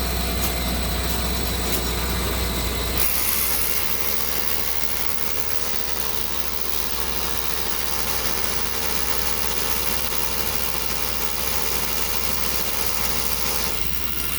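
Foundation repair equipment running steadily, a machine drone with a strong low hum; the sound changes abruptly about three seconds in and then holds steady.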